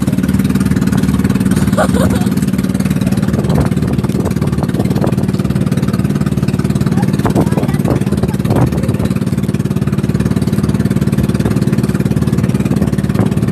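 Motor of a small outrigger boat running steadily under way, a loud even drone heard from on board.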